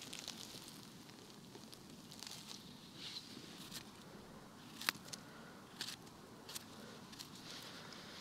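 Soft footsteps and rustling on the forest floor, with a few sharp twig snaps and crackles, the loudest about five seconds in.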